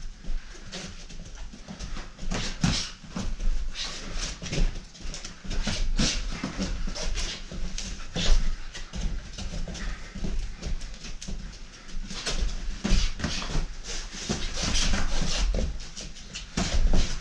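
Boxing sparring: irregular thuds and slaps of gloves landing, shoes scuffing on the rubber mat, and short sharp exhales with the punches.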